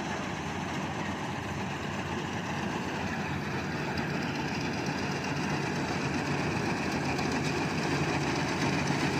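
Engine of a rice-harvesting machine running steadily, slowly growing louder.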